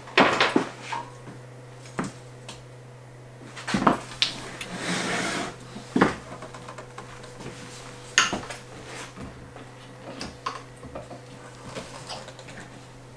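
Scattered knocks and clicks from hands handling an e-mountain-bike frame clamped in a workstand as its power cable is worked out, with a short scraping rustle about five seconds in, over a steady low hum.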